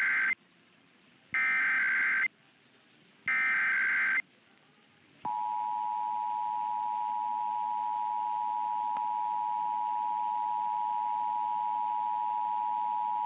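Emergency Alert System signalling: the last of one SAME header data burst and then two more, each a harsh warbling squawk about a second long and two seconds apart, followed about five seconds in by the steady two-tone EAS attention signal, 853 and 960 Hz sounding together, which holds on without change.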